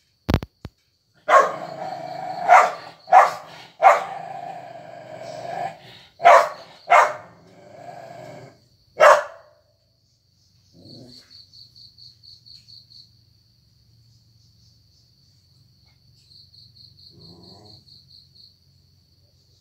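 Dog barking sharply about seven times, with growling between the barks, after a dog fight; the barking stops about nine seconds in. Later a high, fast-pulsing insect chirp comes in two short trills.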